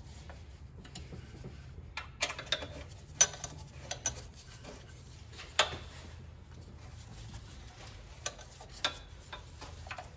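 Scattered light metallic clicks and taps of a hex key working the steel mounting bolts as they are tightened down on a pressure washer pump, the sharpest tap about three seconds in. A faint steady low hum runs beneath.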